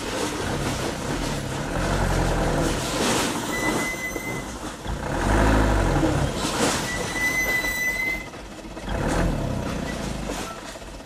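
Mitsubishi Canter dump truck's diesel engine working as the truck drives slowly over a rough dirt track, the engine note rising and falling, loudest around the middle. Two brief high squeals come about four and seven seconds in.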